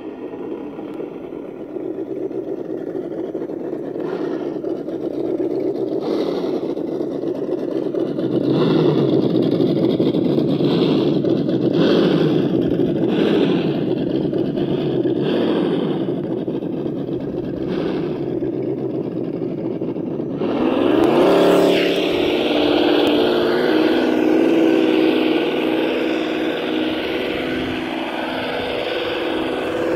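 Truck engine sound from the RC scale wrecker, revving up and down repeatedly as it drives over sand. About two-thirds of the way through it revs up and settles into a steady, even engine note.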